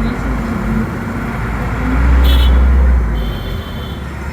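City street traffic noise, with a heavy low rumble swelling and fading between about two and three seconds in. Two short high-pitched tones sound around the same time.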